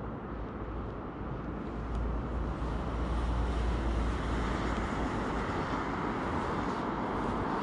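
Steady rush of river water close to the microphone, with a low rumble of wind on the microphone that strengthens about two seconds in.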